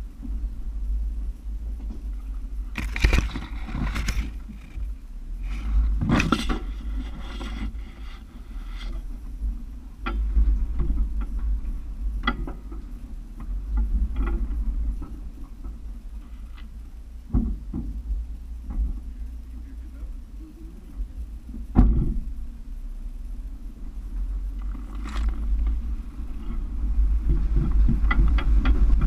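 Toyota FJ Cruiser's 4.0-litre V6 running at a low, steady rumble as it crawls over rocks. Sharp knocks and clunks from the body and suspension come at intervals as it rides over the rocks.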